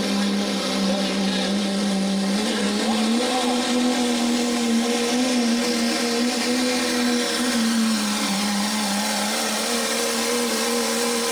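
Pro stock diesel Dodge pickup truck engine at full throttle under load while pulling the weight sled. It makes a loud, steady drone that steps up slightly in pitch about three seconds in and then holds.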